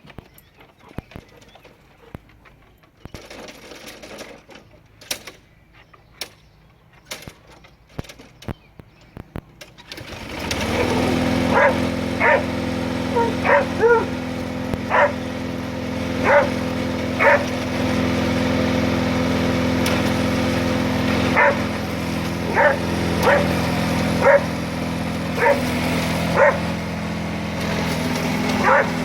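A lawn mower engine starts up about a third of the way in and then runs steadily. Over it a Border Collie barks again and again in short, irregular barks. Before the engine starts there are only faint scattered clicks.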